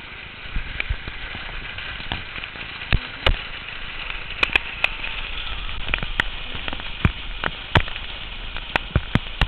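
Hailstones striking a hard surface, sharp irregular cracks every fraction of a second to a second, over a steady hiss of falling hail and rain that grows louder about half a second in.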